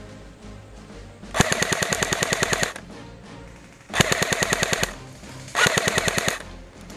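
King Arms Thompson airsoft electric gun firing three full-auto bursts, the first lasting just over a second and the next two shorter, each a rapid even rattle of shots.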